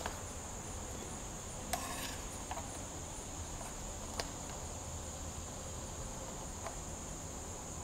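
Quiet room with a steady, faint high-pitched whine and a few light clicks and taps from handling a handheld meter and a glass test slide.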